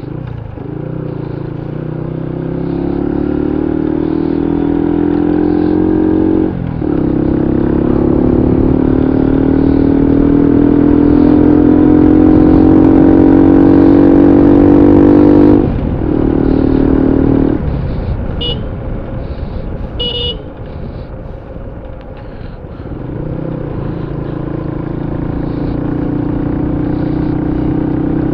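Motorcycle engine heard from the rider's seat, pulling as it accelerates: its pitch climbs through the gears and drops at each shift, about six and sixteen seconds in. The engine then eases off for a few seconds before building again near the end. Two short high beeps come between the eighteen- and twenty-second marks.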